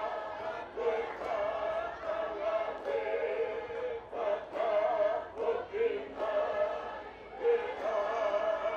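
Tongan lakalaka sung by a massed group of voices in harmony, in continuous chanted phrases.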